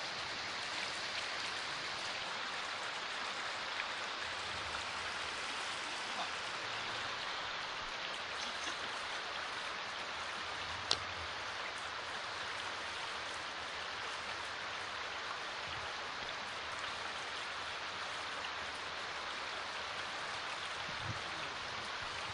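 Shallow river riffle running steadily, an even hiss of flowing water, with a single sharp click about halfway through.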